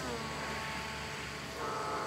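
Motor and propeller of a foam RC plane whining overhead. The pitch glides down at the start, holds lower, then steps back up about a second and a half in as the throttle is opened again.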